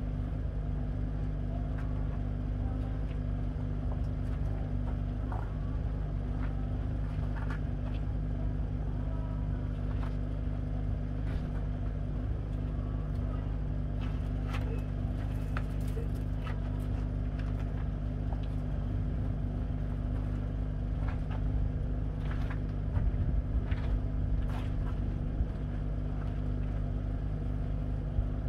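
A steady low machine hum that holds unchanged throughout, with scattered light ticks and taps over it.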